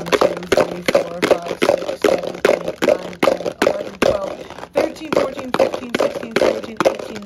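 Dice rattling and clattering inside a plastic Ziploc food container shaken back and forth, a sharp clatter about three times a second.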